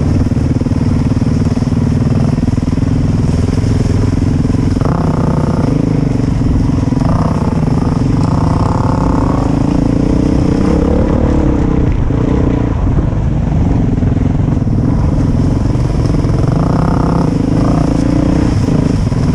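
Dirt bike engine running steadily under the rider on a trail ride, its note changing with the throttle, with a few short higher-revving stretches.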